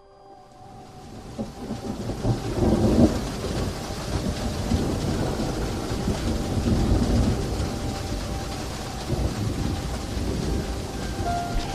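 Rain and thunder sound effects opening the dance's music track: a steady hiss of rain that swells in over the first two seconds, a low rumble of thunder about three seconds in, and faint sustained music tones underneath.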